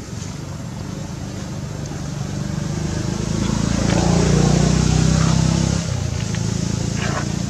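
A motor vehicle engine running with a low, steady hum. It grows louder over a few seconds and then drops off sharply about six seconds in.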